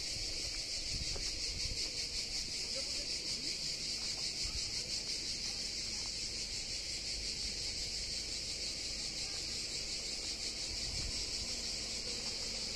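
A steady, high-pitched chorus of insects, buzzing continuously with a fine rapid pulse, over a low, uneven rumble of wind on the microphone.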